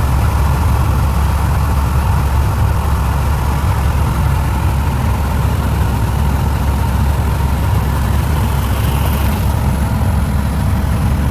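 Helicopter in flight heard from inside the cabin: a loud, steady drone of engine and rotor, heaviest in the low end, with a faint steady whine above it.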